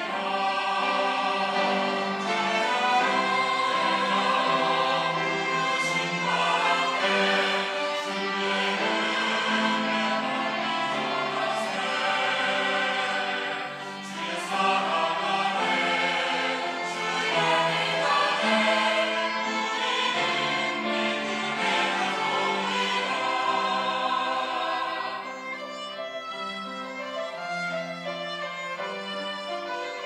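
Mixed-voice church choir singing a Sunday anthem with string accompaniment. About 25 seconds in the voices drop out and the strings carry on more quietly.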